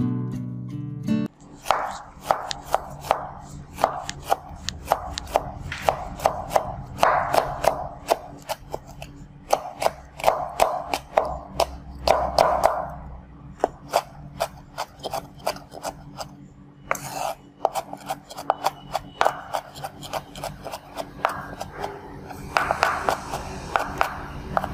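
Knife chopping on a cutting board: a run of sharp cuts, about two or three a second, that begins as a guitar music track ends about a second in.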